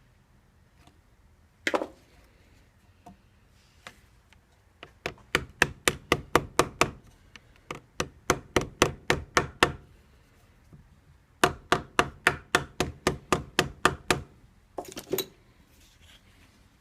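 Hammer blows in three quick runs of about five strikes a second, with a few single knocks between.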